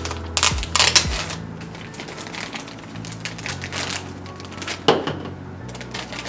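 Background music with a steady bass line, over rustling and clicking of packaging being handled as a doll's boots are unwrapped, loudest in a flurry about half a second to a second in and again about five seconds in.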